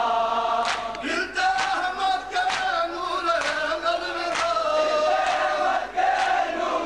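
Men chanting a noha, a Shia mourning lament, led over a loudspeaker with many voices joining in. Sharp matam strikes of mourners come in time about once a second.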